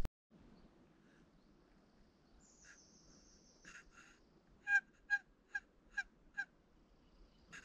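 Turkey yelping: a short run of five evenly spaced yelps, about two a second, after two softer notes and a thin high whistle.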